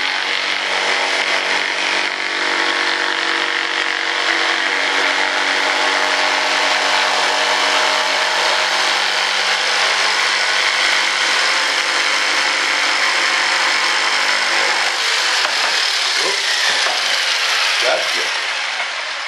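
A loud electric motor running steadily with a strong hiss over a low hum. The hum stops about fifteen seconds in, and the rest dies away over the next few seconds.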